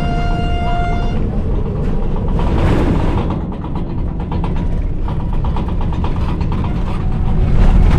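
Engine and road noise from inside a moving road vehicle: a steady low rumble. A held tone sounds for about the first second, and a fast rattle of repeated clicks runs through the middle.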